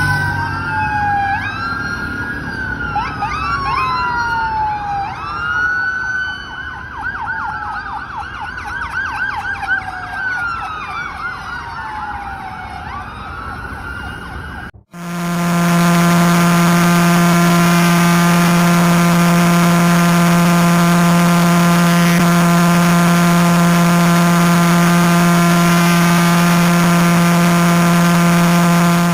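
Emergency alarm audio. For about fifteen seconds several sirens wail at once, their pitch sweeping up and down and overlapping. They cut off suddenly and are followed by a loud, steady, buzzing low alarm tone held for the rest.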